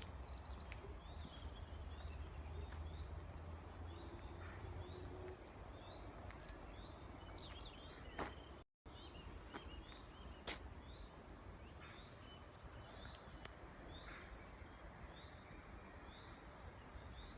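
A bird chirping repeatedly, short calls about once a second, over a faint low rumble, with two sharp clicks in the middle.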